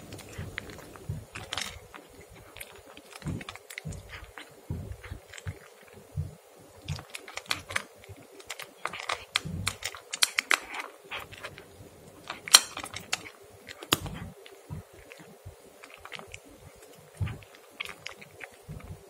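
A cat eating chicken from a bowl close up: irregular chewing and licking clicks, with a couple of sharper clicks about two-thirds of the way through.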